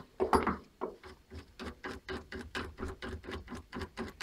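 A steady run of short metallic clicks, about four a second, as an AR-15 barrel nut is loosened and unscrewed with a wrench.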